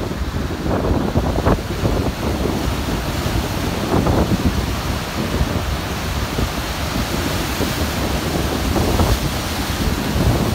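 Wind buffeting the microphone over rough, breaking surf, rising and falling in gusts with short rushes of breaking water.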